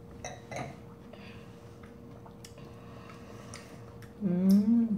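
Soft wet mouth clicks and smacks from eating juicy Cheonhyehyang citrus segments. Near the end comes a loud hummed 'mmm' of enjoyment that rises and falls in pitch.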